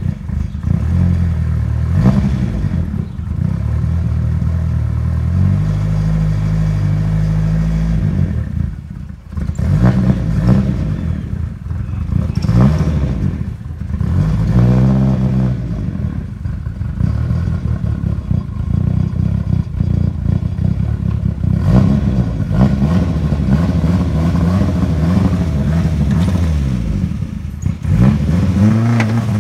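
Turbocharged Mitsubishi Eclipse engine revving up and down over and over, with a short steady hold about six seconds in and a brief drop in revs near nine seconds.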